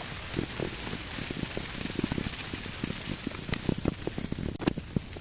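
Kimchi fried rice sizzling in a frying pan, with a steady hiss and many quick knocks and scrapes as it is stir-fried. The hiss drops away near the end while the knocks go on.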